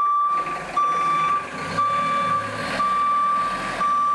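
Forklift's backup alarm beeping at a single steady pitch, about once a second, over the low running of its engine as it reverses.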